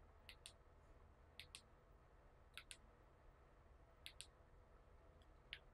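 Faint clicks of a Roku TV remote's buttons being pressed while stepping through channels. Four quick double clicks come about a second and a quarter apart, then a single click near the end.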